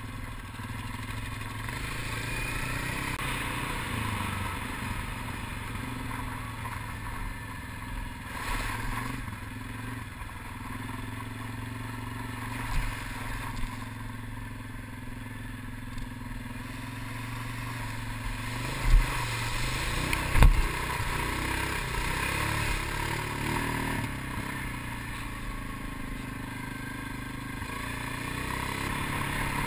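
Quad ATV engine running as it is ridden across sand, its pitch rising and falling with the throttle, with a few sharp knocks about two-thirds of the way through.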